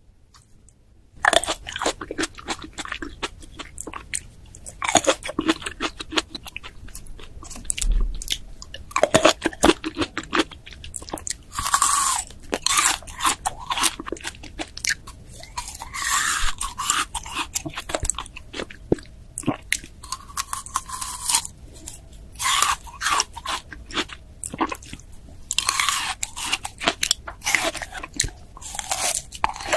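Close-miked bites into a crisp pear and crunchy chewing of the fruit. It starts about a second in, with several louder crunching bites among steady crackly chewing.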